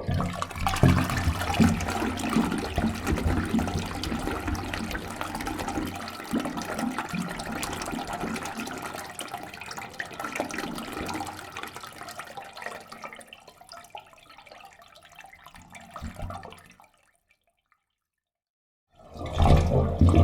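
Rain sound effect: a dense wash of many small drops, heavy at first and fading away during the second half into a couple of seconds of silence. Another loud burst of rain starts near the end.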